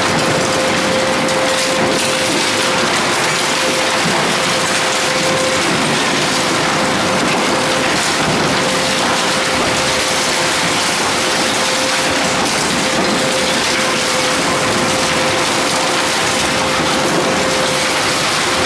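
Twin-shaft scrap metal shredder (Tongli TL61250) tearing up a car body: a dense, unbroken grinding and crunching of metal under the rotating cutter discs, with a steady tone running underneath.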